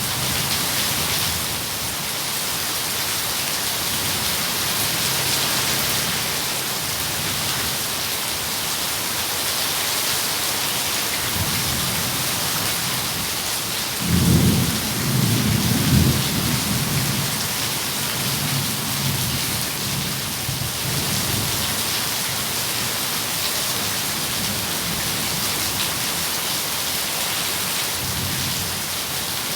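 Steady rain pouring, with a rumble of thunder about halfway through that swells for a few seconds and is the loudest part.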